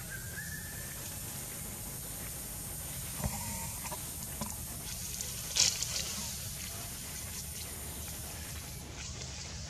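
Outdoor ambience: a steady low rumble with a high hiss. A short pitched call comes about three seconds in, and a sharp crackle a little past halfway is the loudest sound.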